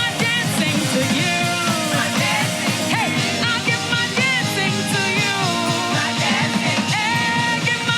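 Live church worship band playing an upbeat gospel song with a steady beat and a melody line gliding over it.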